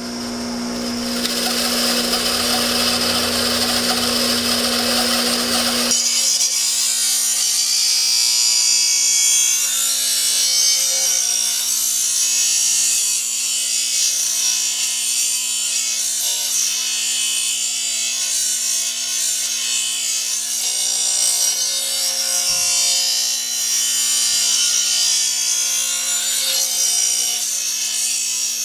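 Bench grinder running with the steel edge of a lawn mower blade held against the grinding wheel, sharpening it: a steady motor hum under continuous grinding. The grinding turns thinner and higher about six seconds in.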